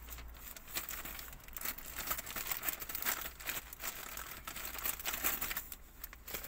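Plastic courier mailer bag crinkling and rustling irregularly as it is handled and pulled open.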